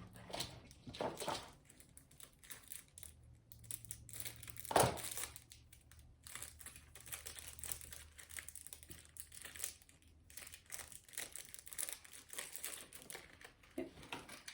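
Packaging crinkling and rustling as a small charm is unwrapped by hand, in irregular short crackles with one louder crackle about five seconds in.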